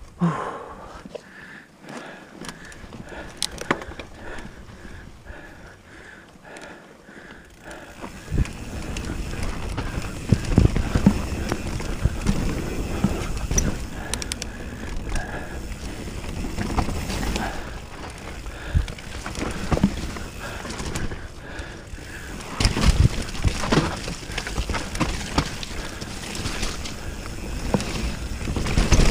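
Commencal mountain bike ridden down an enduro trail, heard from a frame- or helmet-mounted camera: light clicking and rattling at first, then from about eight seconds in a louder, steady rumble of tyres and bike over rough ground, with repeated knocks and jolts from bumps.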